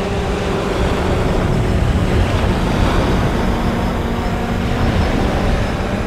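Wind buffeting the microphone in a steady low rumble, with the even hum of a 3DR Solo quadcopter's propellers flying nearby.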